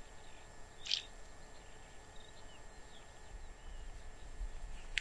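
Faint open-air ambience with a few short, scattered bird chirps and one sharper call about a second in, and a low rumble in the second half.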